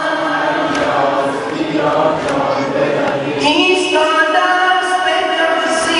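Voices singing a Persian Shia devotional chant (noha) in chorus, a new sung phrase starting about three and a half seconds in.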